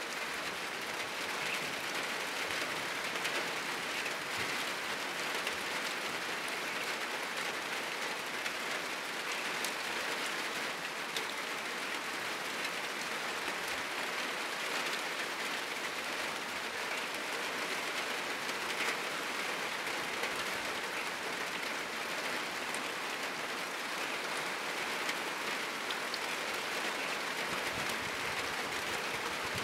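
Heavy rain falling steadily on a roof, with now and then a sharper single drop or drip.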